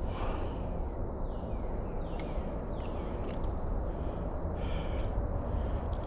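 Outdoor creekside ambience: a constant high-pitched insect drone over a low rumble, with a few short falling chirps about a second and a half to three seconds in.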